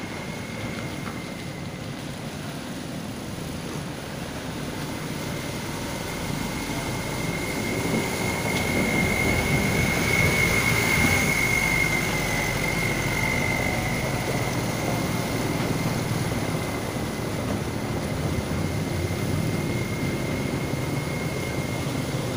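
Road traffic passing on a muddy, waterlogged road: vehicle engines and tyres rumbling, louder about halfway through as a minibus passes close. An orange dump truck's engine draws near at the end. A steady high-pitched whine runs underneath.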